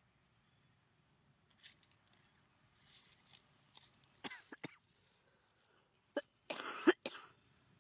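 Monkeys making short calls: a couple of quick squeaks that fall in pitch about four seconds in, then a louder, noisy screech near the end.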